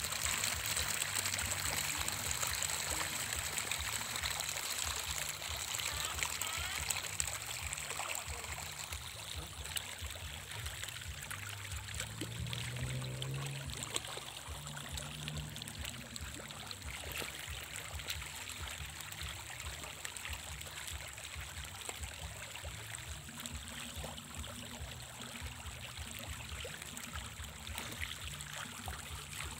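A dense shoal of pond fish churning and splashing at the surface in a feeding frenzy: a continuous patter of many small splashes that eases off slowly.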